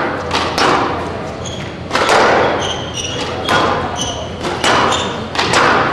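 Squash rally: the ball cracking off racquets and the court walls every second or so, each hit echoing in the hall, with short high squeaks of court shoes on the floor in the middle of the rally.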